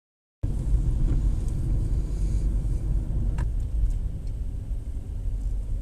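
Steady low rumble of a car on the move, road and engine noise, starting abruptly about half a second in.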